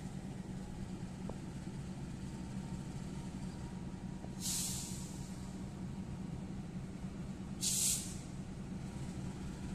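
KAI diesel-electric locomotive idling with a steady low hum, with two short sharp hisses of released compressed air, about four and eight seconds in.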